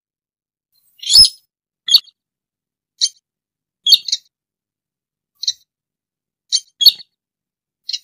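Slaty-breasted rail calling: a series of short, sharp, high-pitched notes, irregularly spaced about a second apart, with the first, about a second in, the loudest.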